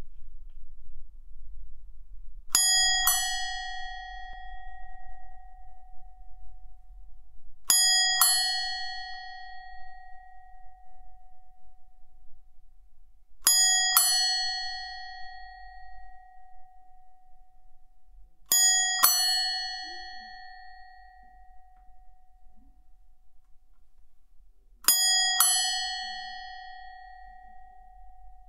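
Bicycle bell rung five times, each ring a quick double 'ding-ding' that rings on and fades over a couple of seconds, the rings about five to six seconds apart.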